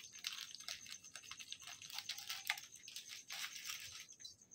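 Salt being sprinkled and rubbed by hand into raw fish pieces in a steel bowl: a run of soft, irregular gritty rustles and crackles.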